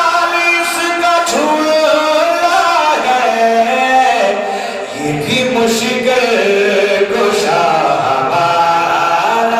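A man singing devotional verse into a microphone in a chanting style, holding long notes that step up and down in pitch.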